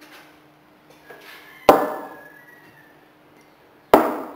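Bar tools being set down on a counter, metal shaker tins and glassware: two sharp knocks about two seconds apart, each ringing briefly.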